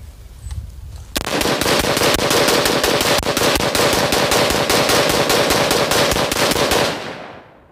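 A2-style AR-15 rifle in 5.56 being mag-dumped: a fast, even string of shots, about five a second. It starts about a second in and runs for nearly six seconds, then the last report dies away.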